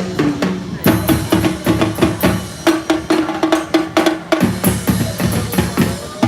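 Live band music led by a drum kit, with kick and snare hits in a steady beat over sustained low notes.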